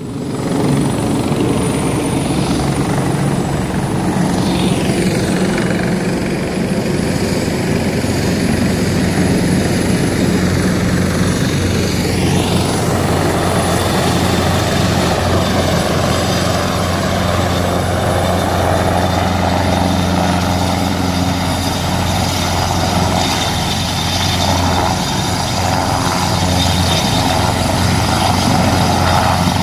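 Airbus EC725 Caracal twin-turbine helicopter running steadily as it flies in low and descends to a hover for landing: a constant low rotor drone with turbine whine over it, and a few brief high pitch glides in the first half.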